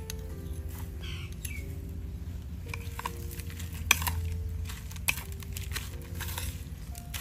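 A metal spoon scraping and clinking against a ceramic plate while crisp fried garlic and chopped peppers are tossed together, with two sharper clinks about four and five seconds in.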